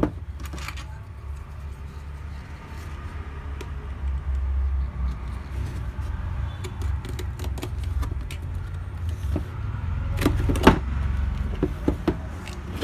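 Cardboard motherboard box being handled and its seal slit with a utility knife: light scraping and rustling, then a cluster of sharp clicks and knocks about ten seconds in as the box is worked out of its sleeve. A steady low rumble runs underneath.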